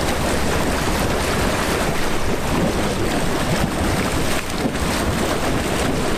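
Small motorboat pulling away, its engine running and its propeller wash churning the water, with wind rumbling on the microphone. The sound is steady and loud throughout.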